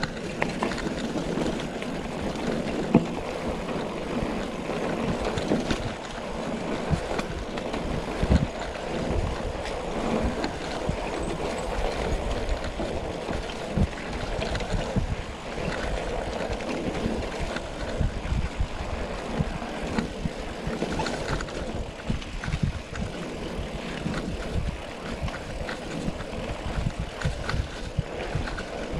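Mountain bike rolling over rough ground: a steady rushing noise with frequent knocks and rattles from the bike, and two sharper bangs about three and eight seconds in.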